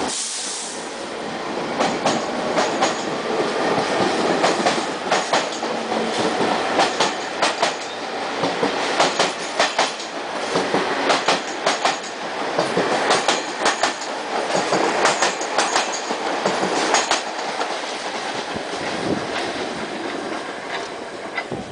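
R46 subway train pulling out of a station and passing close by, its wheels clattering over the rail joints in a clickety-clack of sharp clicks over a steady rumble. The sound fades over the last couple of seconds as the train draws away.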